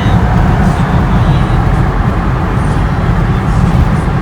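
Steady road and engine rumble inside a car's cabin while driving at highway speed.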